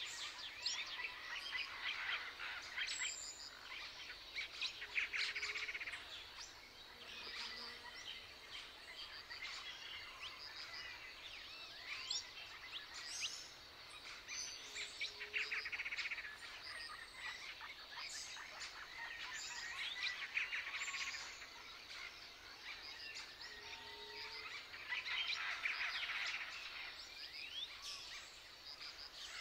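A chorus of small songbirds chirping and singing, with many short high calls and trills overlapping, some louder bouts coming and going.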